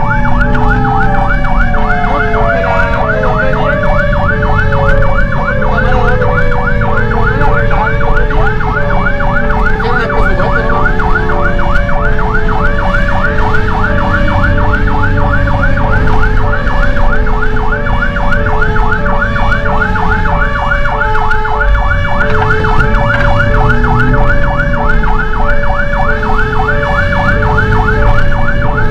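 Fire engine sirens running on an emergency response: a fast electronic yelp, a two-tone hi-lo sounding about once a second underneath, and a siren tone winding steadily down over the first dozen seconds, over the truck's engine rumble.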